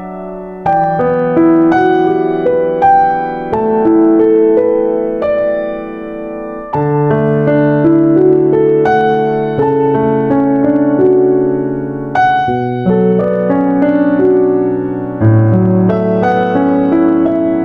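Background piano music: slow, gentle chords and a melody, the notes held and changing every second or two.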